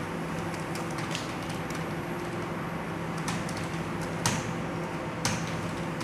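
Computer keyboard keys clicking in irregular runs as someone types, with two louder key strikes about four and five seconds in. A steady low hum runs underneath.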